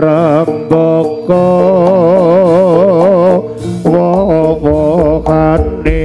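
Jaranan gamelan music played live: a loud, wavering melody line in long held notes over steady gong-like tones and drum strokes.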